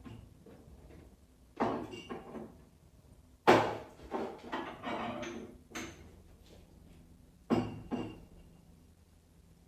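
A series of sharp household knocks and clatters: one, then a loud knock followed by a quick run of smaller knocks, then one more, each ringing briefly.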